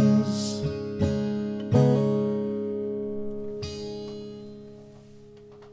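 Acoustic guitar playing the closing chords of a song: several strums in the first two seconds and one more about three and a half seconds in. The last chord is left ringing and fades away slowly.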